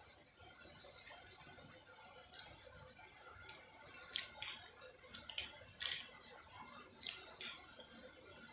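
A person eating Maggi instant noodles close to the microphone: irregular short, wet smacks and clicks of chewing and slurping, the loudest and longest burst about six seconds in.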